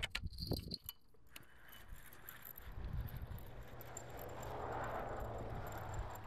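Fishing reel being wound in, with a few sharp clicks and clinks in the first second, then a steady whirring that swells and eases off.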